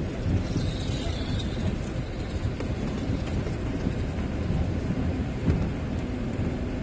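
Camper van driving on a wet dirt track, heard from inside the cab: a steady low engine and tyre rumble.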